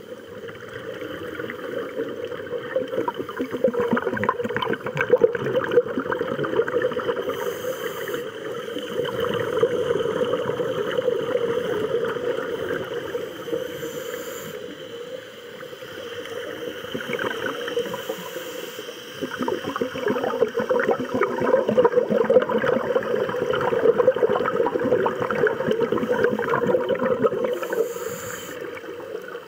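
Scuba divers breathing through regulators underwater, heard muffled through the camera's housing: bubbling, gurgling exhalations with a dense crackle, swelling and fading every few seconds.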